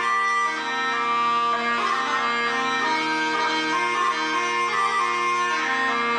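Background instrumental music: a stepping melody over a steady held drone.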